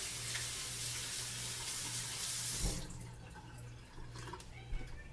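Kitchen tap running water into the sink, turned off about three seconds in with a low thump; a few faint clicks follow.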